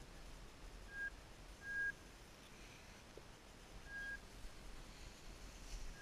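Short, high beeps, all at the same steady pitch, four of them at uneven gaps, the second a little longer than the others, over a faint low rumble.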